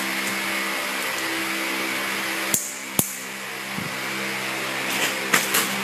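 A steady mechanical hum at a constant pitch, with two sharp plastic clicks about halfway through and a few more near the end as a nipple drinker is pressed and clipped onto the PVC water pipe of a layer cage.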